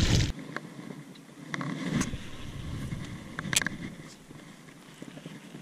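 A small largemouth bass splashing back into the water right at the start, then a few light clicks and handling noise from a baitcasting rod and reel.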